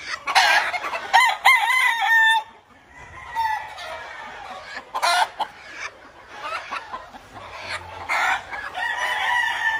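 Gamecock roosters crowing. A loud crow comes about half a second in and lasts some two seconds, ending on a held note. Fainter crows follow from other birds, with a long one starting near the end.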